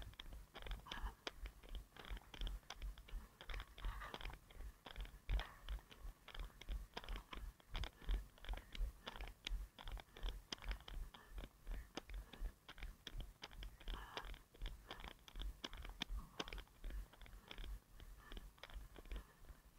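A runner's footsteps on pavement and the jolt of each stride on a head-mounted action camera: a steady, even rhythm of low thuds with sharp little clicks.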